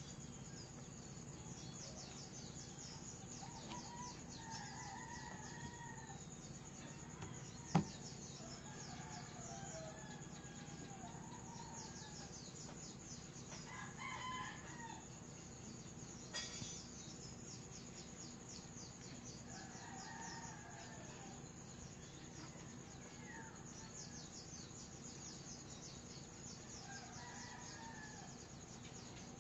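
Faint rooster crows, several times a few seconds apart, over a steady fine high-pitched ticking. A single sharp click about eight seconds in.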